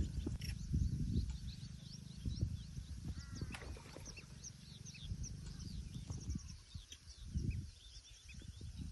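Several birds chirping in rapid short high calls, with a lower curved call about three and a half seconds in, over an uneven low rumble.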